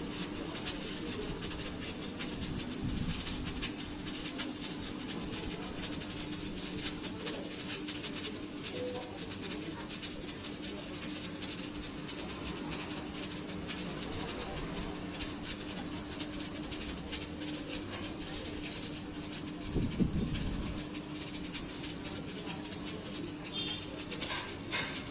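Electric arc welding on a metal disc: a continuous crackling sizzle of the arc over a steady hum from the welder.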